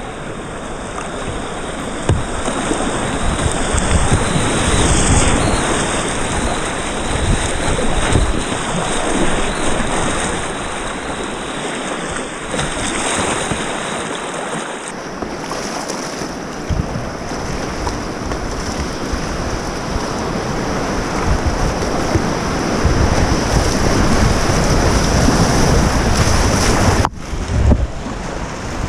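Rushing whitewater of river rapids around a kayak, with paddle splashes and wind buffeting the microphone. The rush grows louder in the last few seconds as the kayak drops into breaking white water.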